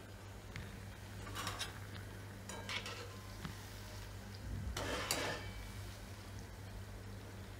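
Shakkarpara dough pieces frying gently in oil in a metal kadai, a low steady sizzle. A wire-mesh skimmer stirs and lifts the pieces, scraping against the pan three times, about one and a half, three and five seconds in; the last scrape is the loudest. The oil is kept on low heat so the pieces fry slowly and turn crisp.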